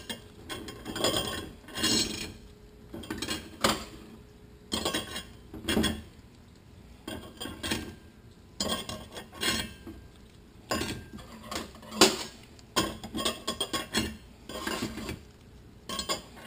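Steel clutch plates and friction discs of a Toyota A340 automatic transmission clinking against each other and the steel clutch drum as they are stacked in by hand: irregular light metallic clicks and clinks, some with a brief ring.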